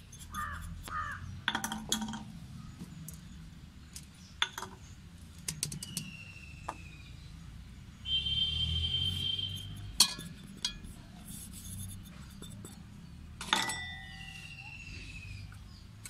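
Light clinks and knocks of a container and spoon against an aluminium mixing bowl as flour is tipped in, with birds calling in the background, the most prominent call about eight seconds in.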